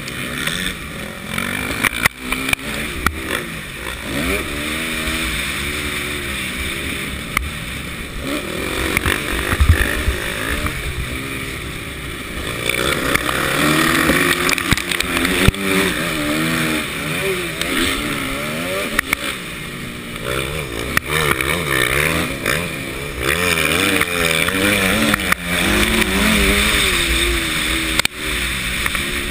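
Motocross bike engine revving up and down again and again as the rider races through the gears, heard close from a helmet camera, with frequent knocks from the track.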